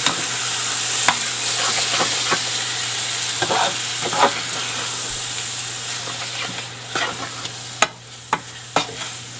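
Meat sauce of browned ground beef, onions and pasta sauce sizzling in a hot electric skillet, with a utensil stirring it and now and then clicking and scraping against the pan. The sizzle eases off near the end.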